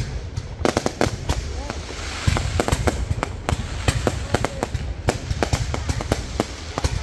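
Aerial fireworks going off close by: a dense, irregular run of sharp bangs and crackles, several a second, over a low rumble.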